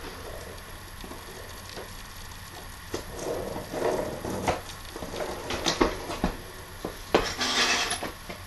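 Scattered knocks and light clatter from a bicycle being handled and moved, with a short rush of noise near the end as it comes right up to the microphone.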